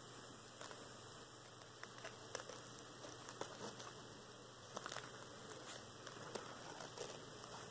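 Faint, irregular small clicks and rustles of fingers handling thread and a tiny cloth sail on a yard against sketchbook paper, over a steady low hiss and hum.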